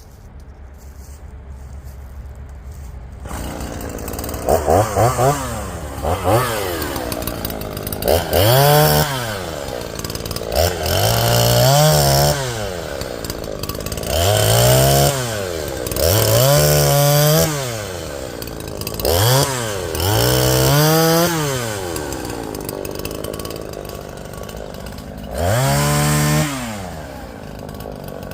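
Two-stroke chainsaw running and being revved again and again, its engine pitch rising and falling with each throttle pull. The first few seconds are quieter.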